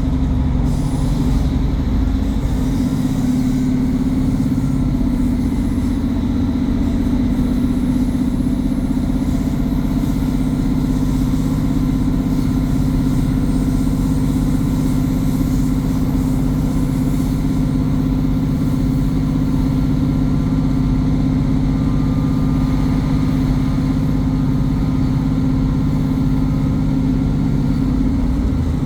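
Class 150 Sprinter diesel multiple unit running, heard from on board: a steady diesel engine drone with a faint turbocharger whistle over it.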